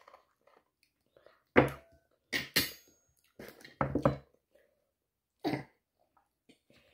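A metal fork knocking and scraping against a plastic divided plate: a handful of short, sharp clatters spread a second or so apart.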